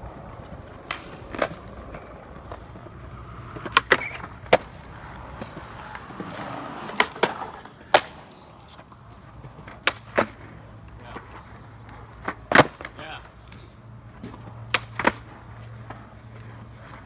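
Skateboard rolling on concrete, with a dozen or so sharp clacks from the board's tail popping and the board landing during tricks.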